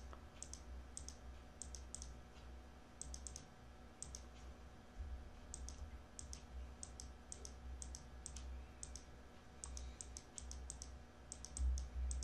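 Computer mouse button clicking again and again, each click a quick press-and-release pair, in irregular runs, over a faint low rumble.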